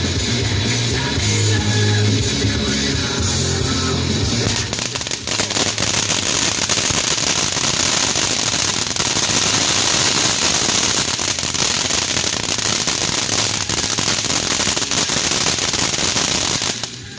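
Rock music with a bass line for the first few seconds. About four and a half seconds in, it gives way to loud, dense crackling fireworks: a fast, continuous stream of small pops that cuts off just before the end.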